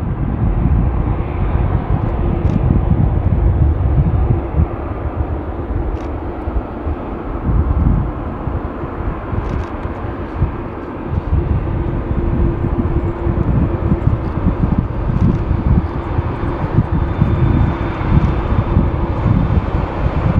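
Boeing 787-9 jet engines at taxi power, a steady rumble with a faint hum, mixed with gusty wind rumble on the microphone.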